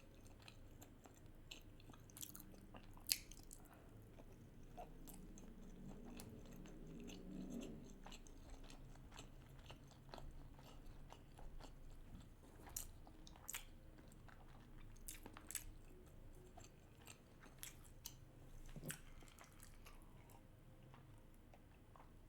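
Faint chewing and mouth sounds from a person eating raw salmon sushi, with scattered short clicks, the loudest about three seconds in.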